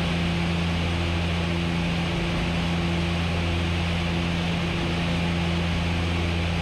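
Steady cockpit drone of a DHC-6 Twin Otter's twin Pratt & Whitney PT6A turboprops and propellers in cruise on approach: an even low hum under a wide hiss.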